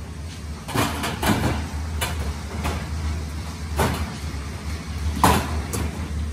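Corrugated metal decking sheets clattering as they are handled and laid onto a stack, a series of sharp metallic bangs spread irregularly over several seconds, over a steady low hum.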